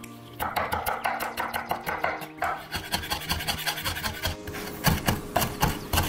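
Chef's knife mincing garlic and ginger on a wooden cutting board: a quick, steady run of knocks as the blade chops through the pile, with a few harder chops near the end.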